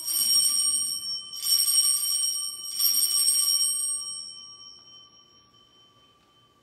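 Altar bells rung in three shakes, about a second and a half apart, marking the elevation of the chalice at the consecration; the chime rings on and fades away over the following few seconds.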